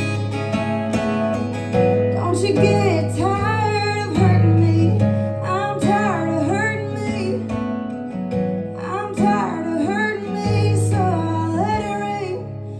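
Solo acoustic guitar being strummed, with a woman singing a melody over it from about two seconds in.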